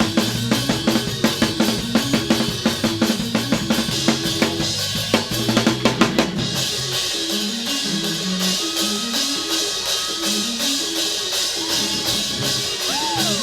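Live church band playing fast praise music: a drum kit with bass drum and snare driving hard over bass notes. About six seconds in the heavy drum hits drop away, leaving a stepping bass line under quick, steady cymbal ticks.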